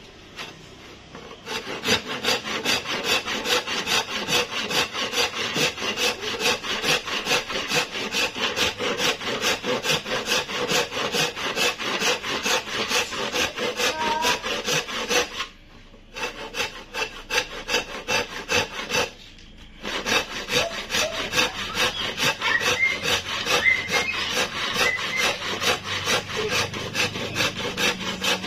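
Hand saw cutting through hardwood with rapid, even back-and-forth strokes, stopping briefly twice partway through.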